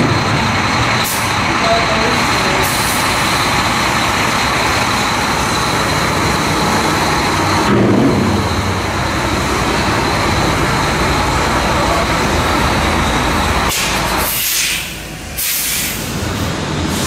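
Steady, loud workshop machinery noise with a thin high whine running through it, broken near the end by a couple of short hisses.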